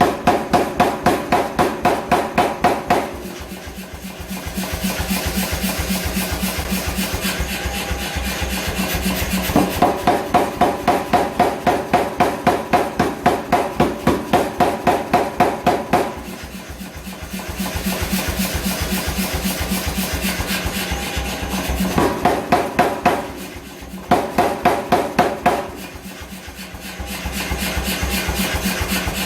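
Hammer blows on hot steel at the anvil, in rapid runs of about three to four a second with a ringing tone. Between the runs are stretches of a steadier rasping, grinding noise.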